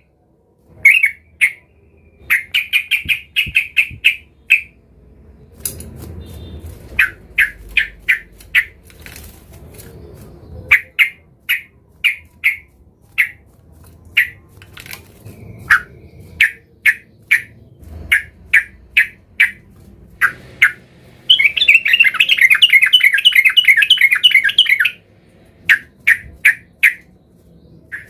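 Yellow-vented bulbul (trucukan) calling: runs of short, sharp chirps repeated several times a second, with a dense burst of chattering that lasts about four seconds past the three-quarter mark.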